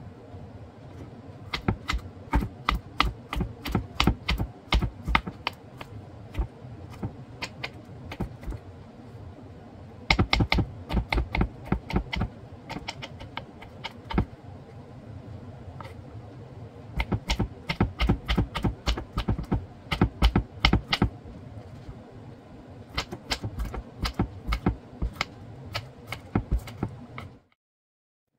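Kitchen knife chopping cucumber on a wooden cutting board: quick runs of sharp taps, about four a second, broken by short pauses.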